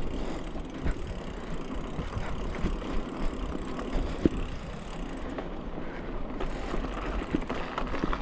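Mountain bike rolling along a dirt singletrack: a steady rumble of tyres on the dirt, with the bike rattling and knocking over bumps, the sharpest knock about four seconds in.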